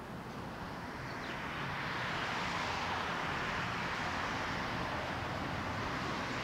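Street traffic noise: a steady rush of passing vehicles' tyres and engines that swells about a second in and then holds.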